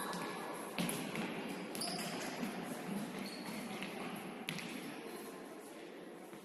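Futsal ball being kicked on a sports hall floor: three sharp knocks a second or so apart, echoing in the large hall over a steady background of players' movement.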